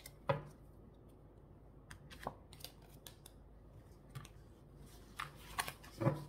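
Tarot cards and crystals being handled on a table: scattered light clicks and taps, several in quick succession near the end.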